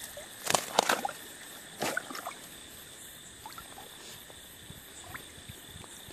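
Water splashing as a hand net is lifted and handled in a river: three sharp splashes in the first two seconds, then only faint small splashes and ticks over a steady hiss.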